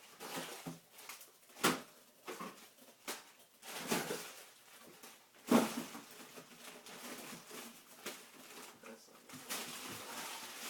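Frozen bags and packages being shifted around inside a freezer: irregular rustles and knocks, the loudest about five and a half seconds in.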